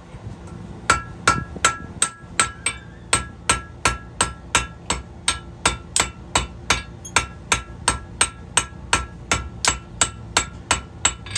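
Small blacksmith's hand hammer striking a piece of hot horseshoe steel on an anvil, starting about a second in and going on steadily at nearly three blows a second, each blow ringing briefly.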